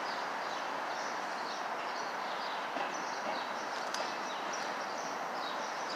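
Small birds chirping in many short, high calls over a steady wash of outdoor background noise.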